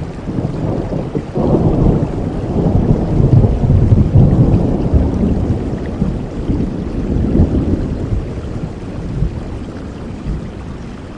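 A roll of thunder over steady rain: the deep rumble swells about a second in, peaks midway and dies away near the end while the rain runs on.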